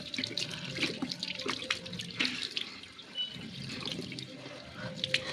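Water running and splashing at a sink, with irregular small splashes and drips.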